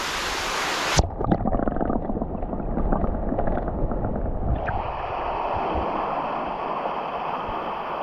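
Rushing water from a small waterfall, a steady hiss. About a second in the sound abruptly turns duller, with a knock and some low rumbling. Just before five seconds it changes again to a fuller hiss.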